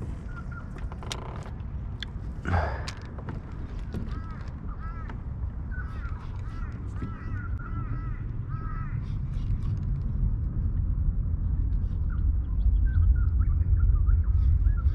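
Birds calling in quick runs of short, arched, repeated notes, over a low rumble that grows louder toward the end. A brief louder noise comes about two and a half seconds in.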